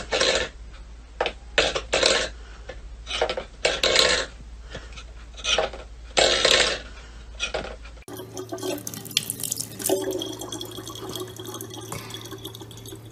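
A stainless-steel pet bowl clattering and scraping on a wooden floor as a cat paws at it, in a string of irregular metallic knocks. About eight seconds in, this gives way to a thin stream of tap water running steadily into a plastic water bottle.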